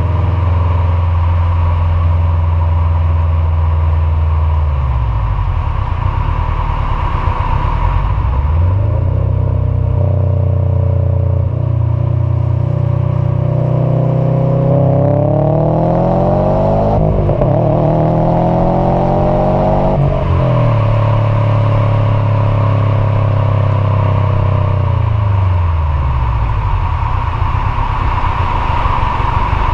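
Subaru STI's turbocharged flat-four running through an Invidia R400 exhaust while driving. The engine note climbs under acceleration, drops sharply at two gear changes about two-thirds of the way in, then holds steady before falling away.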